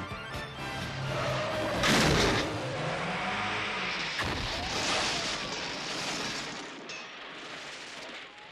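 Car-chase sound effects: a loud crash about two seconds in, then skidding tyres and revving car engines with another loud crash a couple of seconds later, all fading away near the end. A film score runs underneath at first.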